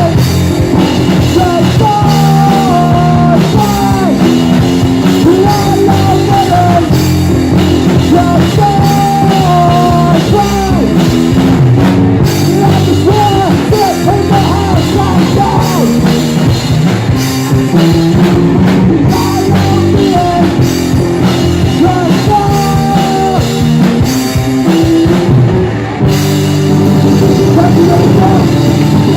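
Live rock band playing a song: guitar and drum kit with a wavering lead melody over them, loud and steady, with a brief drop about 26 seconds in.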